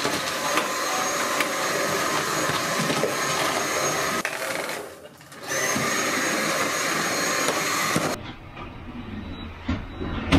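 Dyson cordless stick vacuum running with a steady high whine while it picks up scattered cat litter from the floor. It stops for about a second midway, starts again, and cuts off about two seconds before the end.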